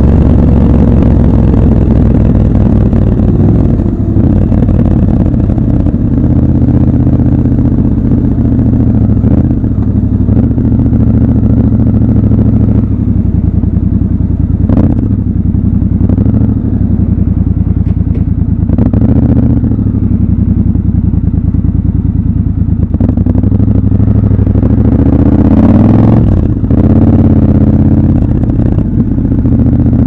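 Triumph Scrambler 1200 XC's 1200 cc parallel-twin engine running loud and steady at city riding speeds, heard from the rider's seat. The engine note rises and falls with the throttle, with a few brief dips along the way.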